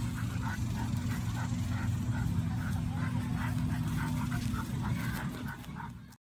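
Puppies whimpering and yipping in short repeated cries while straining on their leashes, over a steady low rumble. The sound fades out and stops just before the end.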